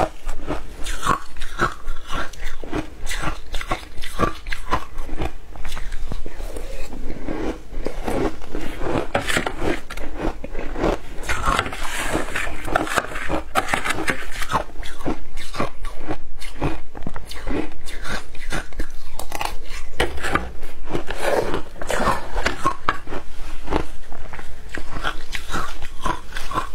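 Close-up crunching and chewing of matcha shaved ice, bite after bite in a rapid, continuous crackle of ice breaking between the teeth.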